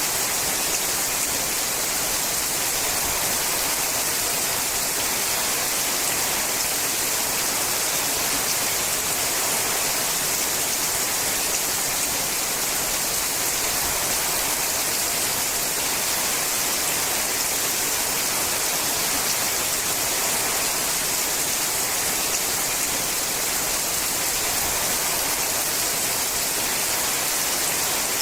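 Rain falling steadily on a sheet-metal roof: an even, unbroken hiss with no single drops standing out.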